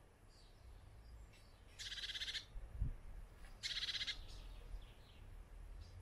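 A small garden songbird gives two short rapid trills, about two and four seconds in, with a few fainter chirps between them. A single low thump comes just before the three-second mark.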